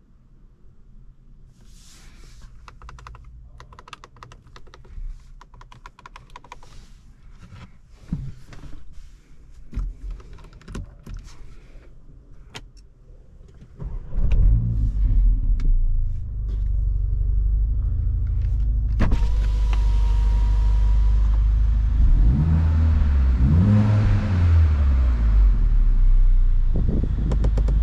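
Handling clicks and knocks, then the Mercedes-AMG GLA 45's 2.0-litre turbocharged four-cylinder engine starts about halfway through with a sharp jump in loudness. It settles into a steady idle, its pitch rising and falling a couple of times near the end. A steady beep sounds for about two seconds shortly after the start.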